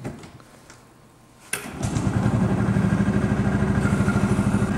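The small engine of a 1963 Pengor Penguin amphibious ATV is started. It catches about a second and a half in and settles into a steady idle with a fast, even pulse.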